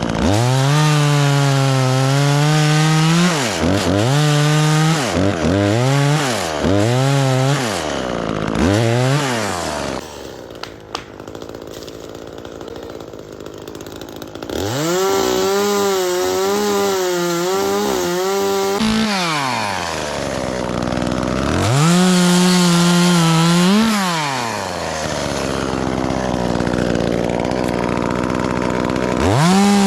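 Chainsaw revved hard and dropped back to idle again and again: a long high run at the start, several quick blips, a quieter idling stretch near the middle, then longer runs at full speed whose pitch wavers as the chain cuts through wood.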